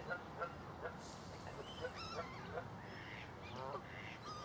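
Faint bird calls: waterfowl honking, among many short, scattered calls from other birds.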